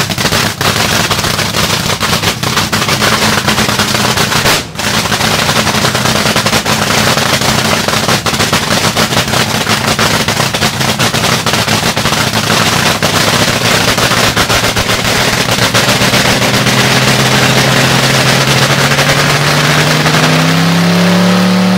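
Fuel altered drag car's supercharged engine running its pit warm-up: a loud, rapid crackling idle. Over the last few seconds the revs climb slowly, then drop back at the very end.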